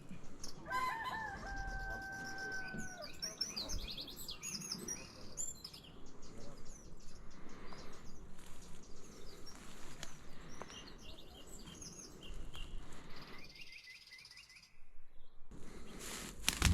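A rooster crows once, about a second in, ending on a long held note that drops away. Small birds chirp around it.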